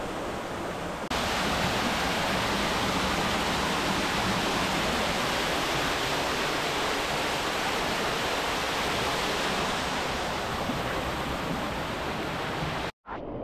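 Steady rush of falling water in a low-flow canyon creek, getting louder about a second in and cutting out briefly near the end.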